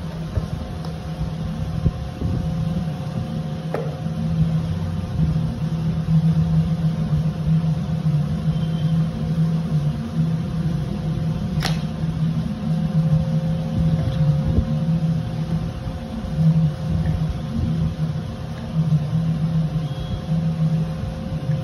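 Steady low mechanical hum of a running motor, with light handling of cardboard boxes and one sharp click about halfway through.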